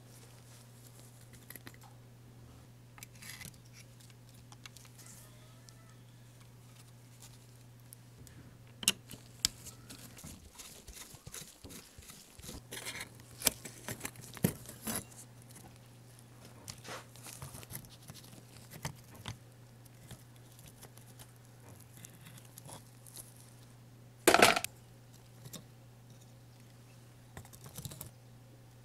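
A thin metal tool scraping and prying at a die-cast toy car body and its plastic base, giving scattered small clicks and scrapes, with a louder sharp clatter about 24 seconds in. Under it runs a steady low hum that drops out briefly around 10 to 12 seconds.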